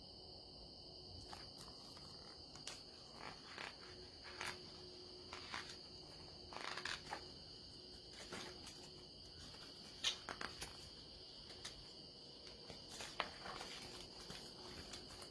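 Quiet background with a steady faint high-pitched hum, and scattered soft clicks and rustles throughout.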